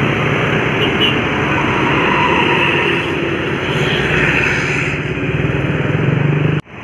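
Loud road traffic with a bus engine running close by as it passes, over steady tyre and engine noise. The sound cuts off abruptly near the end.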